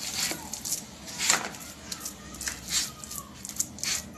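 A hand kneading and mixing a crumbly dough of mashed potato, semolina and egg on a plastic tray: irregular soft pressing and rubbing strokes, several a second.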